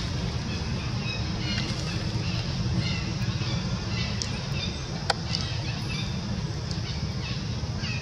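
Outdoor field ambience: a steady low rumble with scattered short, high bird chirps, and one sharp click about five seconds in.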